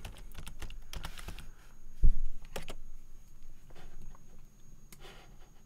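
Computer keyboard typing: scattered short key clicks, with one louder thump about two seconds in.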